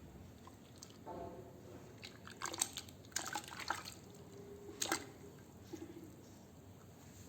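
Wet sand crumbling in water: a soft squish about a second in, then a run of sharp crunchy crackles with drips, and one louder crack near five seconds.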